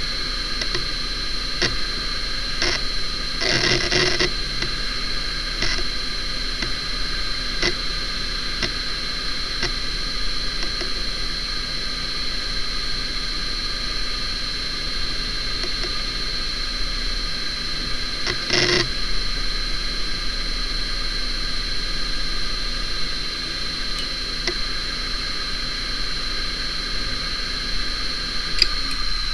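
Hitachi Ultrastar DK32EJ-36NC 36GB hard drive spinning with a steady high-pitched whine, with scattered seek clicks as Windows 2000 shuts down: several in the first few seconds, a short cluster about four seconds in, and one more past the middle.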